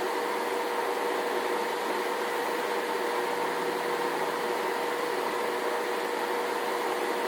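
A steady machine hum with a constant mid-pitched tone over an even noise, unchanging throughout.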